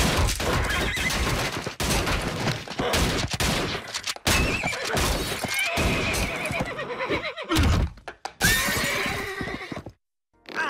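Cartoon action sound effects: repeated shotgun blasts and crashing impacts, with a horse whinnying over them. The din cuts off suddenly near the end.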